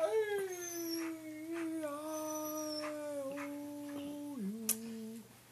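A husky howling: one long note that slides slowly lower, then drops down in two steps towards the end before stopping.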